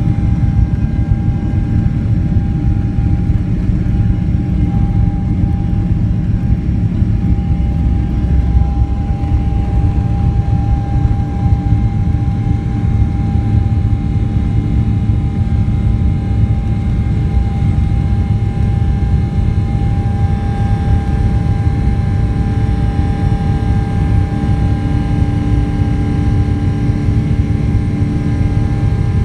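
Boeing 777-300ER's GE90-115B turbofan engines at takeoff thrust, heard from inside the passenger cabin: a loud, steady deep rumble with a steady high whine over it, through the takeoff roll and the climb after liftoff.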